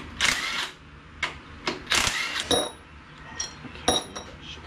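Loose metal parts clinking and rattling in a cardboard box as it is handled and dug through, with short scraping rustles. Several bright, ringing metal clinks come in the second half.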